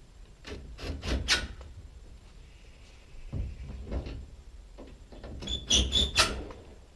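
Cordless drill driving screws into an IBC tank's steel cage in short bursts, in three groups about a second, three and a half, and five and a half to six seconds in.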